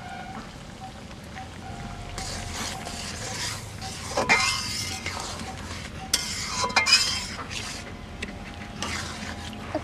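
A metal ladle stirring curry in a metal wok, scraping and clinking against the pan. The stirring starts about two seconds in, with several sharp clinks.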